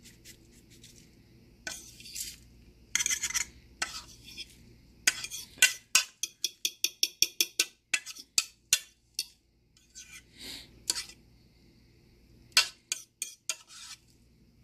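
A utensil stirring and clinking in a dish, mixing graham cracker crumbs with brown sugar and soft butter for a cheesecake crust. In the middle comes a run of quick, even clinks, about five a second.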